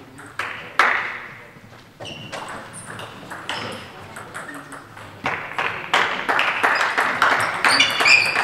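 Table tennis ball clicking sharply off bats and table, each click echoing through the hall. A few spaced clicks come in the first couple of seconds, then a quicker run of hits from about five seconds in as a rally gets going.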